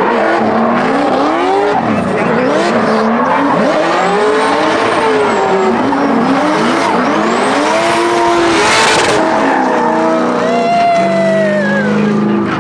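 Two drift cars running in tandem, their engines revving hard up and down again and again as they slide, over the hiss and squeal of spinning tyres. The tyre noise swells briefly about two-thirds of the way through.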